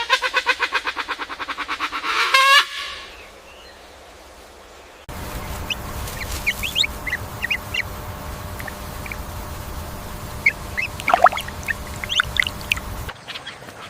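A loud animal call with a fast, quavering pulse, about eight beats a second, lasting two to three seconds and swelling at its end. After a pause, the sound cuts to a steady low background with scattered short, high chirps.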